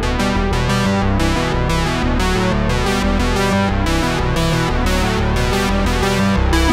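Background music with a steady run of quick, evenly spaced notes.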